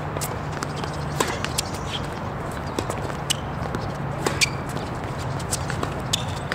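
Tennis court sounds: irregular sharp knocks and clicks of a ball being hit or bounced and of footsteps, over a steady low hum.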